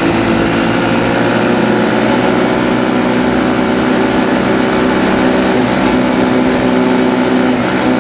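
Small 150cc mini buggy engine running steadily at an even pitch, with a noisy hiss over it.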